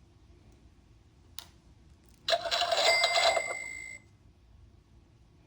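A sound book's electronic sound effect through its small speaker: a bright ringing, cash-register-like chime with a clatter, about two seconds in and lasting under two seconds before cutting off suddenly. A faint click comes just before it.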